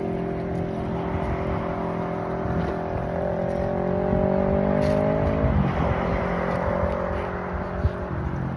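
A motor vehicle's engine running, steady at first. Its pitch climbs for about two and a half seconds, drops suddenly about five and a half seconds in, then holds steady again over a low rumble.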